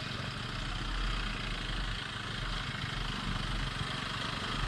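Motorcycle engine running steadily at low speed, with road and wind noise on the microphone.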